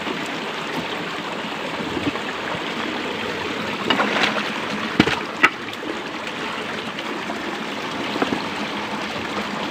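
Shallow stream running and trickling over rocks, with a few brief sharp knocks around the middle.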